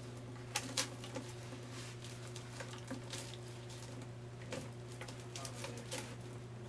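Hands handling a Kirby vacuum's plastic fill tube, corrugated hose and cloth bag, giving scattered light clicks and rustles over a steady low hum.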